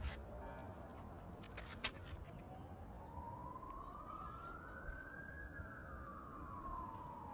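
Faint emergency vehicle siren wailing: one slow rise in pitch starting about two and a half seconds in, peaking a little past the middle, then falling away toward the end. A few sharp clicks sound in the first two seconds.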